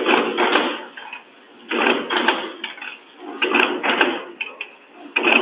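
Packaging machine running through its cycle, with a burst of mechanical noise repeating evenly about every second and three-quarters.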